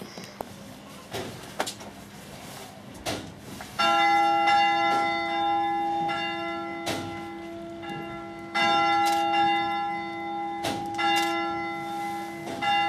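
Church bell ringing: a few knocks, then a bell struck about four seconds in and struck again several times at uneven intervals. Each strike rings on into the next.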